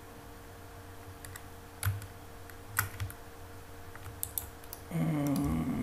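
Computer keyboard and mouse being used: a few scattered single key and button clicks over a faint steady electrical hum.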